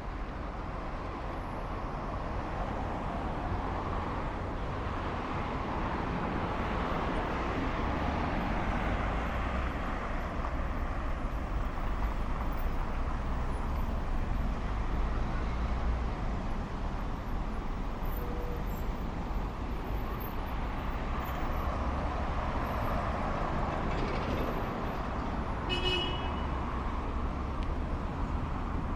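Road traffic on a city avenue: cars and buses passing in a steady stream of engine and tyre noise that swells and eases. A brief high-pitched tone sounds near the end.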